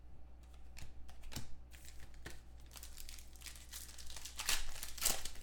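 Foil wrapper of a 2015-16 Select basketball card pack crinkling and tearing as hands open it: a run of irregular crackles, loudest near the end.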